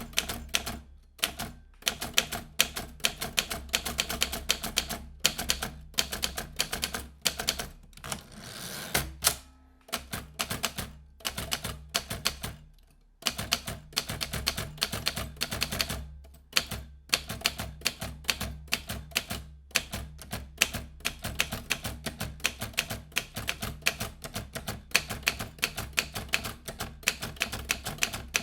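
Vintage manual typewriter being typed on: rapid runs of sharp key strikes, broken by a couple of brief pauses.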